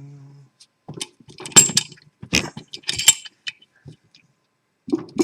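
Metal parts of a Lockwood padlock being handled while it is taken apart after picking: a string of sharp clicks and clinks, loudest between about one and three and a half seconds in, with more near the end.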